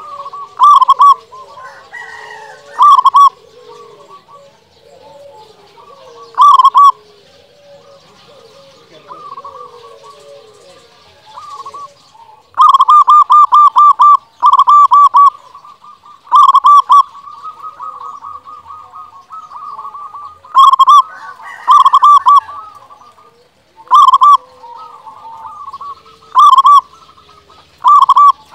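Local zebra dove (perkutut) singing: loud bursts of quick stuttering coos come every couple of seconds, about a dozen in all, with softer bird calls in between.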